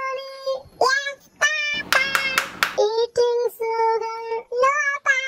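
A child's high singing voice holding long, steady notes of a nursery-rhyme tune, with a short noisy burst about two seconds in.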